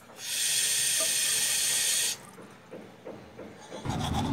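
A bathroom sink tap runs water into a glass for about two seconds, then shuts off. Near the end, a toothbrush starts scrubbing on teeth.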